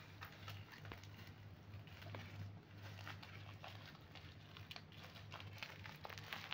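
Faint crinkling and crackling of black plastic wrapping being pulled and twisted open by hand, over a low steady hum.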